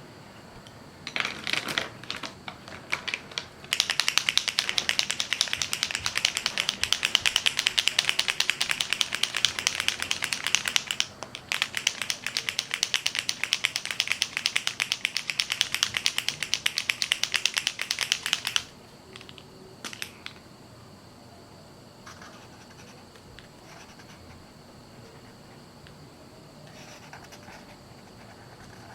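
Drawing strokes scratching rapidly back and forth on a drawing surface, as in fast shading or scribbling: a few strokes, then two long runs of quick strokes with a short break between, and a couple of taps before it goes quiet.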